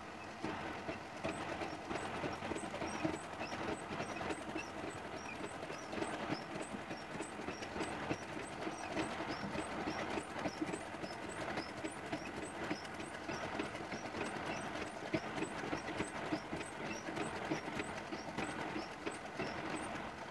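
Sagar straight-stitch sewing machine running steadily, stitching through cotton cloth with a rhythmic clatter and light repeated ticks. The machine is set for short, dense stitches. It starts about half a second in.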